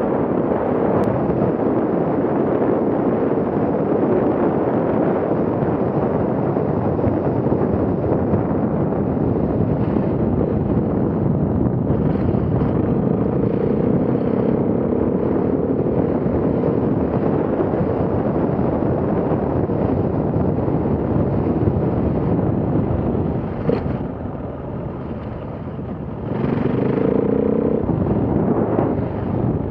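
KTM enduro motorcycle ridden at speed over dirt and gravel, its engine running under heavy wind rush on the microphone. After about 24 seconds the sound drops as the throttle eases, picks up again for a couple of seconds, then eases off near the end.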